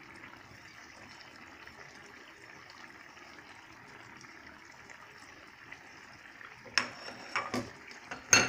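A pan of rohu fish-head and moong dal curry simmering with a soft, steady bubbling. Near the end come a few sharp knocks, the loudest just before it stops.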